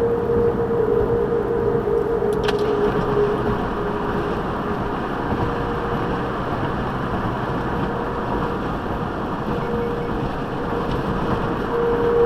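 Golden Gate Bridge's sidewalk railing wind baffles humming in high wind: one steady, wavering tone that fades through the middle and swells again near the end. It sits over a dense rush of wind and traffic noise.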